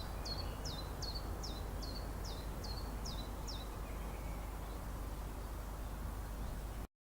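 A bird calling a quick series of eight short, high notes, each sliding sharply down in pitch, over a steady low background rumble. The sound cuts off abruptly near the end.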